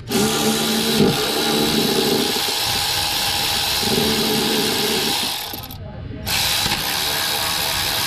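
A power ratchet runs out the mounting bolts of a Honda V6's hydraulic timing belt tensioner to remove it. The tool whirs steadily, stops briefly a little before the six-second mark as it moves to the next bolt, then runs again.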